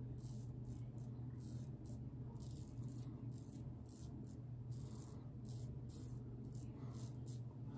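Muhle R41 safety razor with an Astra blade scraping through lathered beard stubble in a rapid series of short, scratchy strokes, a few per second.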